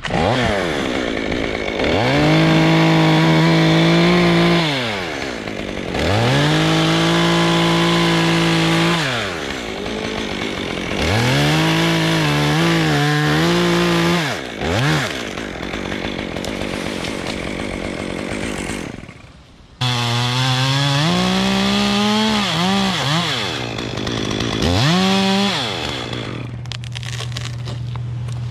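Gas top-handle chainsaw cutting through a sweet gum trunk: the engine revs up to full throttle five times for a few seconds each, the pitch wavering under load in the cut, and drops back to idle between cuts. It settles to a steady idle near the end.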